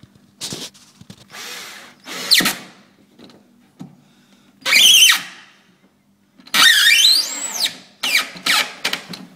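Cordless drill-driver driving a small screw in about six short bursts of a second or less, the motor's whine climbing and falling in pitch with each squeeze of the trigger.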